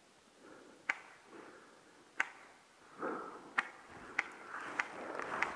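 A series of sharp, isolated clicks or snaps, about six of them at irregular intervals of roughly a second, over soft rustling that grows louder near the end.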